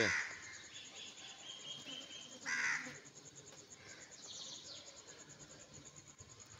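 A crow cawing: one loud, harsh caw about two and a half seconds in, then a fainter, higher call around four seconds, over a faint steady outdoor background.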